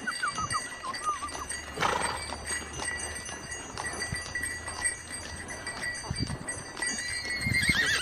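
Mules in the street: bells ringing steadily, hooves clip-clopping, and a whinny near the end.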